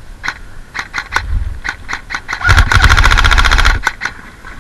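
KWA RM4 ERG airsoft electric rifle firing: a few scattered single shots, then a full-auto burst of rapid, evenly spaced shots over the whir of the motor and gearbox, starting about halfway in and cutting off abruptly about a second later.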